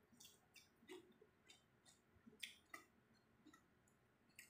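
Faint chewing of a mouthful of rice and fried fish eaten by hand: about a dozen short, soft mouth clicks and smacks at uneven intervals.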